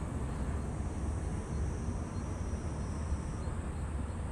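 Low, steady rumble of a departing Embraer E175's two CF34 turbofan engines, heard from far off as the jet climbs away. A faint, high, steady tone in the background stops about three and a half seconds in.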